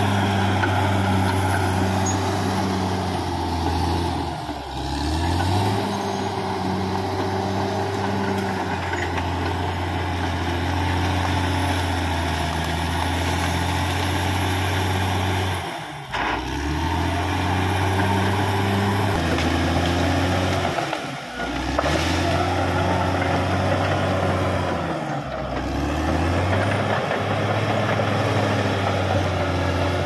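Caterpillar D6R XL bulldozer's diesel engine running steadily under load while clearing brush and felled trees. Several times the engine note briefly drops and then climbs back up.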